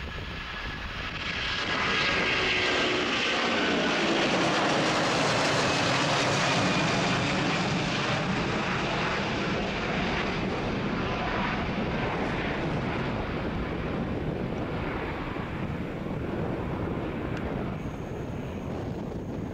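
Airbus A330-200 jetliner's Rolls-Royce Trent 700 engines at take-off power as it climbs out. The roar swells over the first two seconds, with a whine that drops in pitch as the jet passes, then slowly fades as it climbs away.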